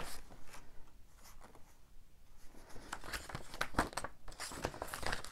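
Handling of a Blu-ray case and its cardboard slipcover: plastic crinkling, card rustling and light clicks, busiest in the second half.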